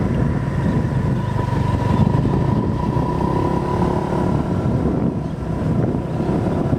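Motorbike engine running steadily while riding, with wind noise on the microphone.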